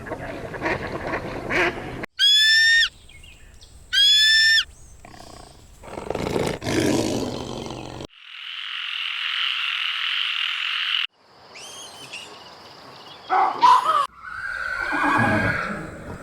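A string of separate animal sound effects one after another: two identical short high-pitched calls about two seconds apart, a low rough growling call, a few seconds of steady hiss, then more low rough calls near the end.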